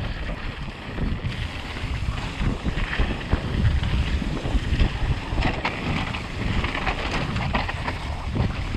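Wind rushing over the microphone of a rider-mounted camera as a mountain bike rolls down a dirt trail, with tyre noise and frequent small rattles and knocks from the bike over bumps.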